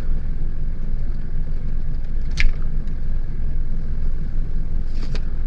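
Steady low background rumble, with light clicks from handling the action figure and its batarang: one sharp click about two and a half seconds in and two more near the end.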